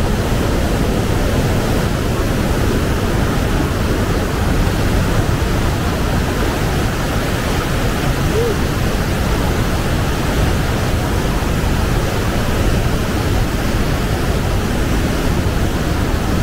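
Wind buffeting the microphone: a loud, steady rushing noise with a flickering low rumble.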